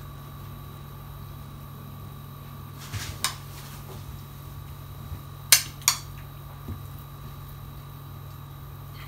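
A metal spoon clinking against a bowl a few times as seafood filling is scooped out, with two sharp clinks about halfway through, over a steady low hum.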